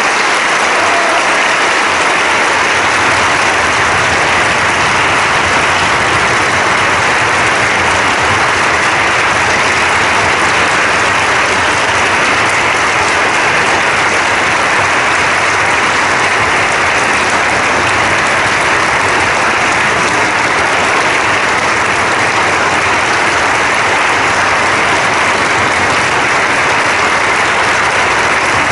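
Audience applauding, a steady, sustained clapping.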